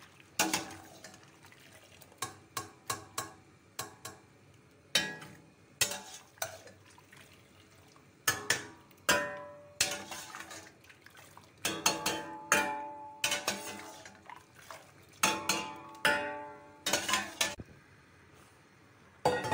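A metal ladle knocking and clinking against a stainless steel cooking pot: many sharp, irregular strikes, several of them ringing briefly, as food is scooped from the boiling water.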